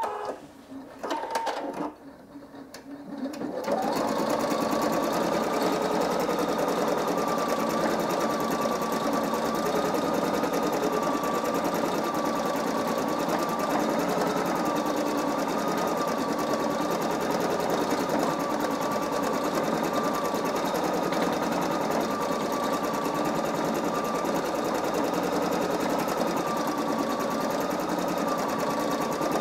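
Singer EM9305 embroidery machine stitching out a running-stitch outline design: a few short clicks and sounds in the first seconds, then from about four seconds in the needle runs at a steady rate with a constant mechanical clatter and a slightly wavering whine.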